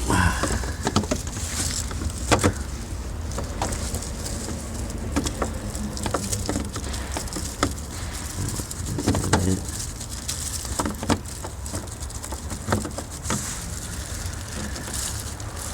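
Scattered, irregular clicks and taps of hard plastic being handled as a headlight's rear dust cap is pressed on and twisted to lock, over a steady low rumble.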